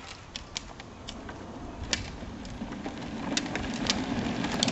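A small wheeled craft rolling down an asphalt street toward the listener, a low rumble growing steadily louder, with scattered clicks and rattles.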